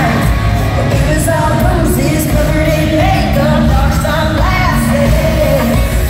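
Live country-pop band playing loud in an arena, with a female lead vocal over heavy bass and drums.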